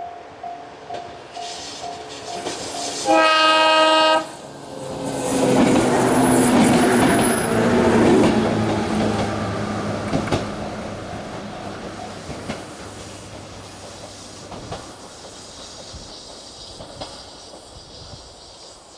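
A level-crossing warning bell dings steadily, then a JR 103 series electric train gives one loud horn blast about a second long, about three seconds in. The train then rumbles past with wheel clatter, loudest a few seconds after the horn, and slowly fades away.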